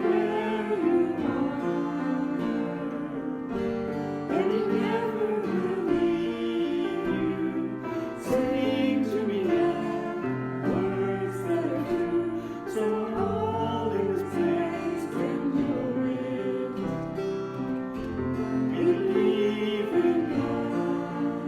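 Worship song: singing over guitar and other instrumental accompaniment, played by a church praise team.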